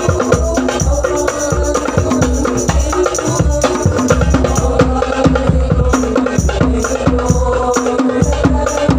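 An instrumental passage of a song: a melody over a steady, busy rhythm of hand drums and jingling, tambourine-like percussion.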